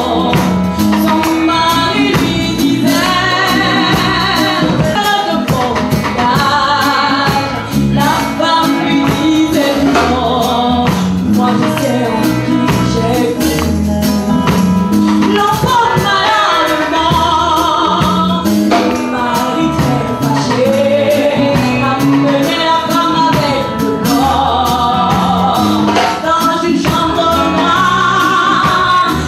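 Live gospel music: a mixed group of men and women singing over instrumental accompaniment with a steady beat.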